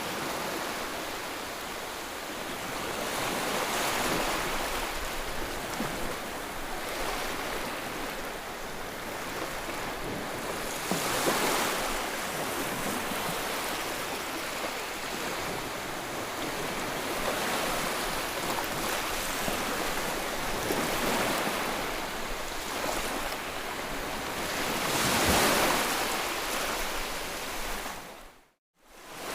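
White-noise track: a steady rushing hiss that swells and fades every several seconds, like surf. It drops out to silence for about half a second near the end, then resumes.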